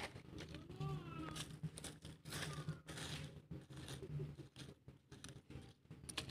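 Dry teak leaf litter crackling and crunching irregularly as a hand rakes and scrapes through it on the forest floor.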